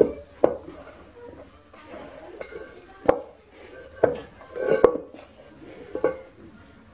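Stainless steel mixing bowl clanking and briefly ringing, about seven sharp knocks spread irregularly, as soft brioche dough is worked and gathered into a ball inside it with the bowl being shifted about.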